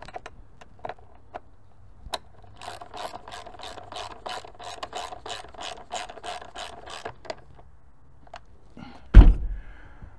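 Hand ratchet wrench clicking as the engine cover bolts are snugged down: a few scattered clicks, then an even run of about four clicks a second for some five seconds. A single heavy thump near the end is the loudest sound.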